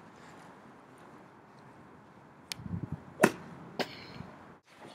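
Golf club swing: a brief rush of air, then one sharp crack of the clubhead striking the ball a little over three seconds in, followed by a lighter click about half a second later. Before the swing only a faint steady hiss.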